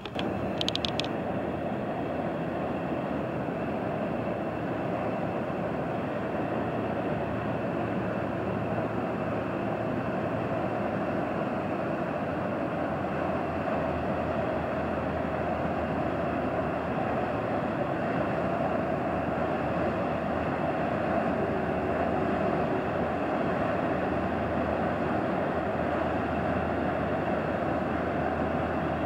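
An inland motor cargo ship passes close, its diesel engine giving a steady rumble mixed with the rush of water at its bow wave. A few brief high clicks come about a second in.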